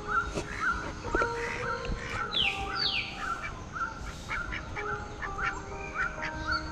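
Several caged birds calling together: a steady run of short chirps, two or three a second, with two higher calls sweeping downward about two and a half seconds in.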